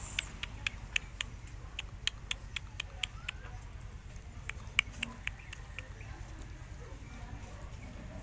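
A rapid series of sharp clicks, about four a second, in two runs with a short pause between them, stopping about six seconds in.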